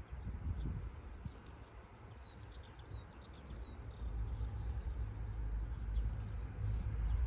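A river flowing, with birds chirping faintly and a low, uneven rumble that is the loudest part.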